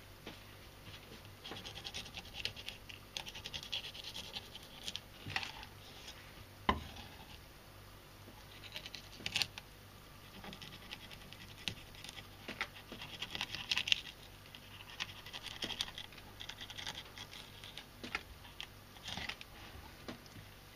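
A kitchen knife slicing and scraping along a mackerel's backbone on a wooden cutting board as the fish is filleted: a long, irregular run of scratchy strokes with scattered sharp clicks.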